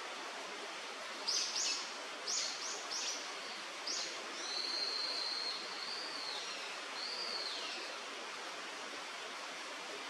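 Steady rush of river water, over which a bird gives six sharp, high calls in quick succession, then a thin, wavering whistle that rises and falls.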